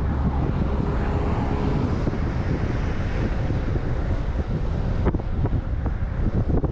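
Wind rushing over an action camera's microphone on a fast road-bike descent: a steady low rumble with the bike's tyres and the road surface under it. A few short knocks come from about five seconds in.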